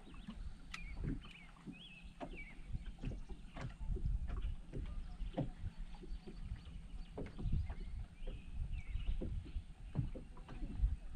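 Small waves slapping and knocking irregularly against the hull of a bass boat, with a few short high chirps.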